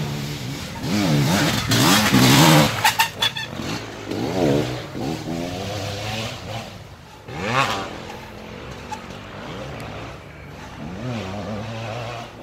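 ATV engines revving, their pitch rising and falling several times, loudest about two seconds in.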